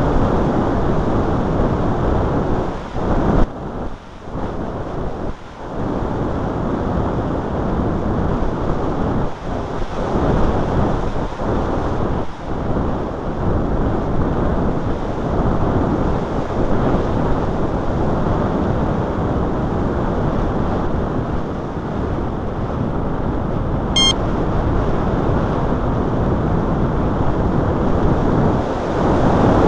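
Wind buffeting the microphone: a loud, steady rush of noise with gusts rising and falling. About 24 seconds in comes a brief high beep.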